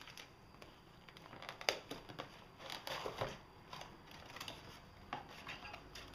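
Unboxed accessories and their packaging being handled: a scattered run of light clicks and short rustles, the sharpest about a second and a half in.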